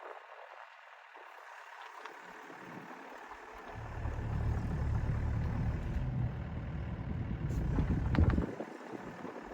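Bobcat E80 compact excavator running. A loud, deep rumble rises a few seconds in, holds for about four seconds, peaks with a sharp knock, then drops away near the end.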